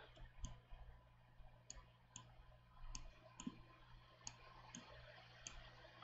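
Faint computer mouse clicks, several of them spaced irregularly, over near-silent room tone.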